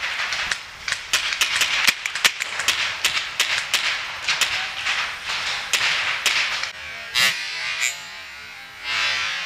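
Paintball markers firing: a rapid, uneven string of sharp pops, several a second. About two-thirds in, the sound changes abruptly to a quieter background with only a few isolated pops.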